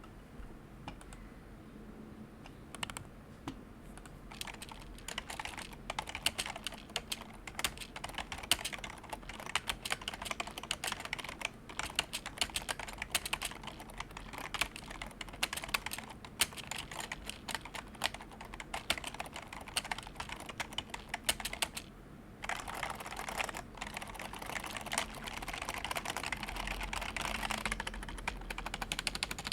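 Typing on an HHKB KB#02 rubber-dome keyboard: a continuous run of keystrokes, sparse at first, then steady. A short pause comes about three-quarters of the way through, followed by faster typing.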